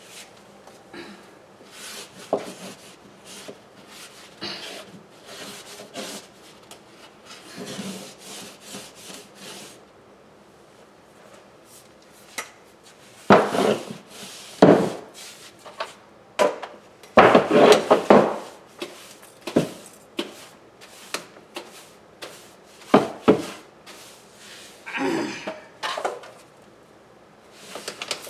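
Floor-cleaning noises: irregular rubbing and scraping with scattered knocks and clatters. There are louder bursts of scraping about halfway through and again near the end.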